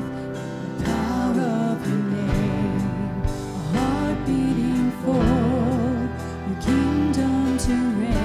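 Live worship band playing a slow contemporary worship song: a singer carrying the melody with some held notes sung with vibrato, over strummed acoustic guitar and a steady bass line.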